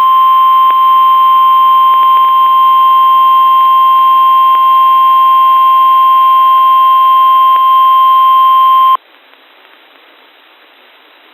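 NOAA Weather Radio warning alarm tone: a single loud, steady beep held for about nine seconds, then cutting off abruptly, leaving faint radio hiss. The tone signals that a warning broadcast, here a flash flood warning, is about to follow.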